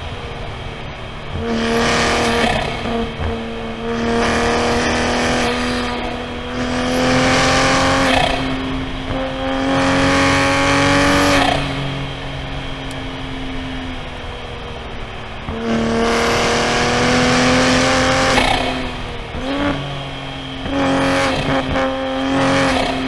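Toyota GR Supra A90's B58 turbocharged inline-six pulling under throttle, then easing off and getting back on it several times, its note climbing slowly during each pull. A high whistle rises and falls with each pull.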